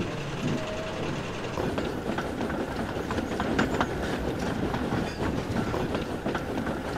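Passenger train running, its coach wheels clicking over the rail joints above a steady rumble. The clicking sets in about a second and a half in.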